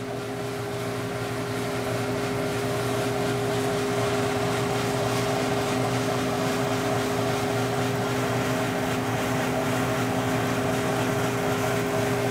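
Valenta 7 fluid-bed coffee roaster running mid-roast, its blowers lofting the beans on hot air: a steady hum with a few held tones over a rush of air, growing slightly louder over the first few seconds and then holding even.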